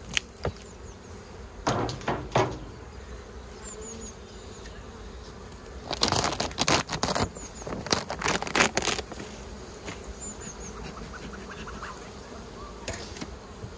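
Buckfast honey bees buzzing steadily around a hive. Over the buzzing come short clatters of wooden hive parts being knocked and shifted, a few near the start and a longer run of them about halfway through, which is the loudest part.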